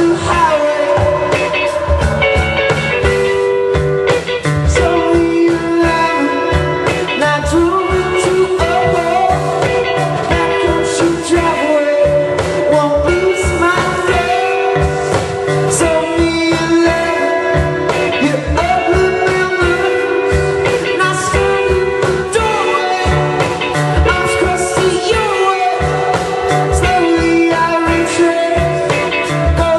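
Amplified rock band playing live: electric guitar over bass and a steady drum beat, with singing.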